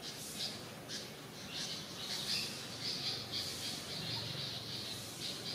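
Steady high-pitched insect buzzing, with a few short squeaky calls over it in the first couple of seconds.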